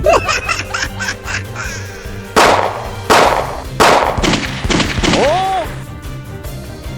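Background music with added cartoon sound effects: three sharp bangs about two thirds of a second apart in the middle, and short squawking calls that bend up and down in pitch near the start and around five seconds in.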